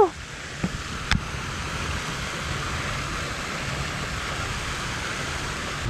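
Steady rushing noise with two faint clicks about a second in.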